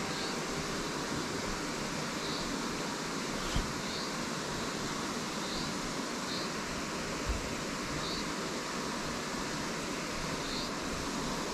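Steady rushing noise, with short high chirps repeating every second or so and two soft knocks, one a little before the middle and one past it.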